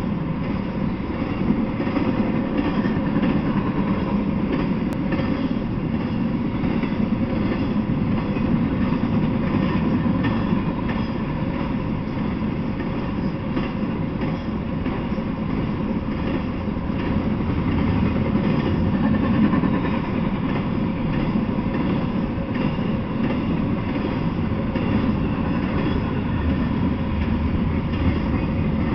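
Intermodal freight train's cars rolling steadily past on the rails: a continuous rumble of steel wheels with fine, rapid clicking and a faint steady whine over it.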